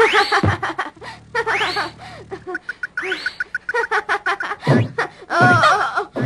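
Cartoon comedy sound effects: three quick upward-sweeping springy glides with sharp taps and a brief run of rapid ticks as beach balls bounce, then a boy's cheerful voice near the end.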